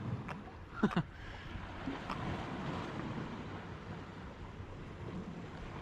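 Wind buffeting the microphone over the sound of sea water, with a loud double knock about a second in and fainter knocks around it.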